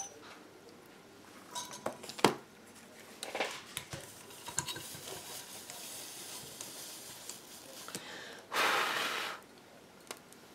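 Handling noise of a small stained glass piece and a solder spool on a paper-covered work table: a few separate clicks and knocks as they are picked up and set down, then a short, louder rustle near the end.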